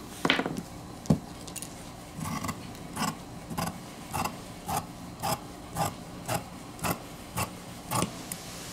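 Large tailor's shears cutting through stiff horsehair canvas, a run of short crisp snips about twice a second, starting a little over two seconds in. A couple of knocks come first, in the first second or so.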